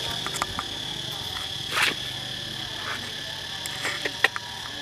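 Steady high-pitched buzz of an insect chorus, with a few short clicks and a brief rustle about two seconds in.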